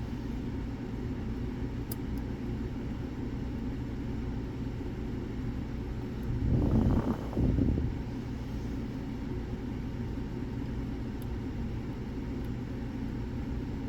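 Lock picks working the pins of an Era Fortress lock cylinder, heard as a faint click about two seconds in and a few tiny ticks later, under a steady low rumble. A louder low swell comes around seven seconds in.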